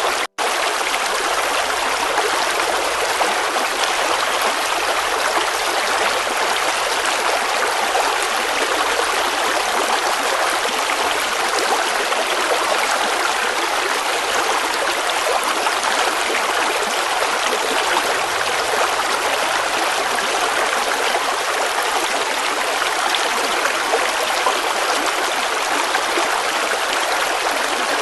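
River water flowing, a steady rushing babble with little deep rumble, broken once by a momentary dropout to silence just after the start.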